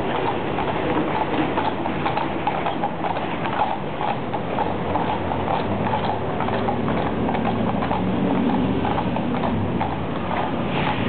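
Hooves of two police horses clip-clopping at a walk on a paved street, a steady run of uneven strikes.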